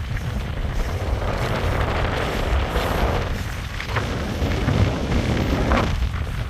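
Strong headwind buffeting the phone's microphone: a steady low rumble with two louder rushing gusts.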